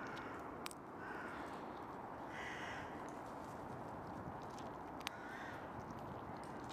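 Eurasian red squirrel cracking pine nut shells on an open hand, a few sharp cracks, the loudest about five seconds in, while a crow caws several short times in the distance.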